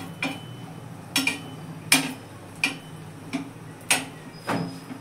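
A perforated steel spoon tapping and pressing against a flat griddle (tawa) while an egg paratha cooks, giving short sharp metallic clicks at a fairly even pace, about seven in all.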